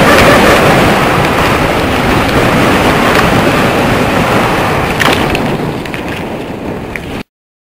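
Loud wind rushing over the microphone of a camera moving fast over a sand dune, a steady roar that fades over the last couple of seconds and cuts off abruptly.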